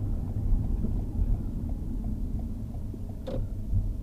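Steady low rumble of a car driving, heard from inside the cabin, with one short higher squeak about three seconds in.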